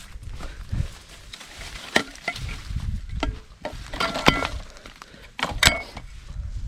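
Rustling and handling noise as freshly dug plants are packed into a back basket, with several sharp knocks and clinks, clustered around two, four and five and a half seconds in; a couple of them ring briefly.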